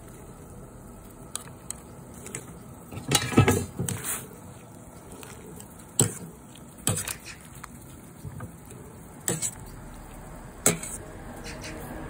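Water at a rolling boil in a stainless steel pot of blanching green onions, with clacks of cooking utensils against the pot as the greens are turned. There is a cluster of knocks about three to four seconds in, then single knocks near six, seven, nine and ten and a half seconds.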